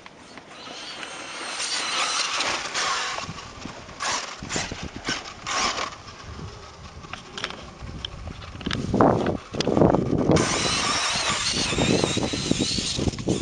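A 1/5-scale electric RC buggy with a brushless motor on a 4S LiPo is driving on dirt. The motor and drivetrain whine rises and falls with the throttle over the scrabble of tyres on loose dirt. It gets louder in roughly the last third as the buggy runs closer.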